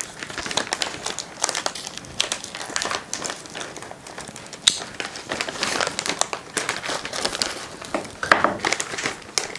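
Freeze-dried fruit pouches crinkling and crackling as two bags are opened and handled.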